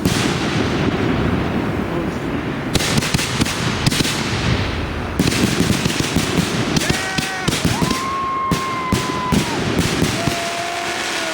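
Firework finale: a dense, continuous barrage of reports and crackling from many cakes and repeaters firing at once. In the second half, several steady whistle-like tones hold over the crackle for a second or so each.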